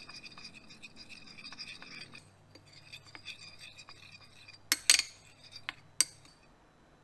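A small metal spoon stirring sauce in a fluted glass bowl, rapidly scraping and clinking against the glass with a light ringing tone. It slows to scattered taps, then a few sharper, louder clinks come about five and six seconds in.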